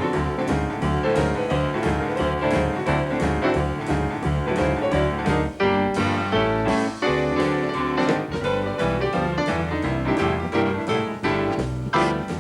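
Solo piano playing old-fashioned piano blues, a steady repeating bass figure under chords and runs.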